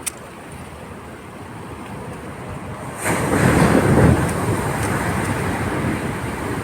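Wind buffeting the microphone: a sharp click at the start, then a rumbling gust that comes in suddenly about three seconds in and slowly eases off.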